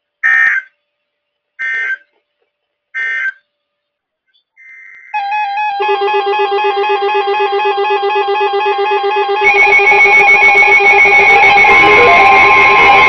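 Three short screeching NOAA Weather Radio SAME end-of-message data bursts, about a second and a half apart. About five seconds in, several weather alert radios start sounding their electronic alarms together in overlapping beeping and warbling tones. The alarms get louder around ten seconds in, and a steady tone joins near the end.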